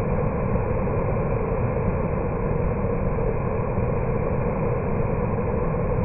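Waterfall pouring over a rock ledge into a creek pool, a steady, unbroken rush of water that is heaviest in the low end.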